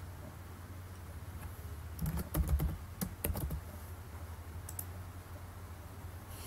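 Typing on a computer keyboard: a short run of key clicks and taps about two seconds in, then a couple of single clicks, over a low steady hum.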